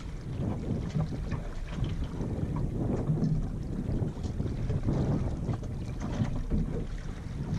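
Wind buffeting the microphone over water washing against the hull of a Yamaha 24 sailboat sailing slowly in light wind; an uneven low rushing that swells and eases every second or so.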